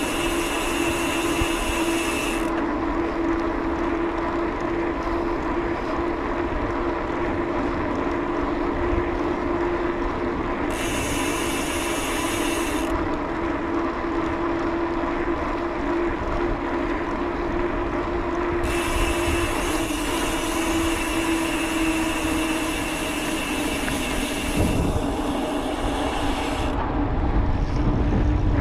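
Bicycle with knobby mountain-bike tyres rolling on asphalt at about 15 mph: a steady tyre hum over road and wind noise, with a high freewheel ratchet buzz that cuts in and out three times.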